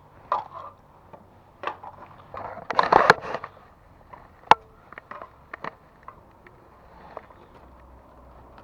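Irregular knocks and clatter of hands-on work taking down a TV aerial, with a burst of rattling about three seconds in and a single sharp click a moment later.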